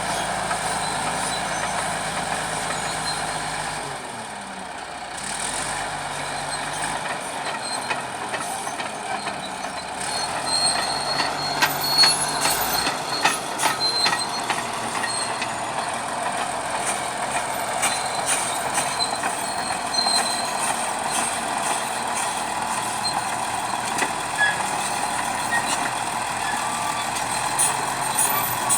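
Bulldozer's diesel engine running steadily under work, with scattered metallic clanks and knocks from about ten seconds in.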